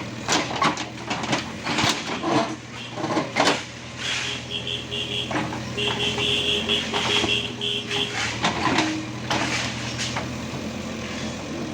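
JCB machine's diesel engine running steadily, with sharp metal clanks and knocks over the first few seconds, then a high electronic beeping in quick pulses for about three seconds.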